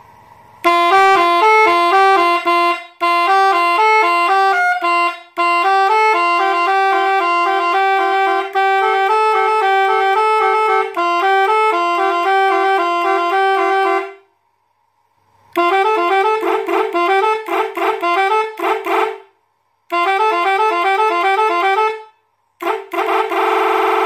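Three-trumpet chrome electric bus horn, switched from an eight-button control pad, playing a melody of short, quickly changing notes. One tune runs for about thirteen seconds, and after a short pause it plays further runs of notes broken by brief gaps.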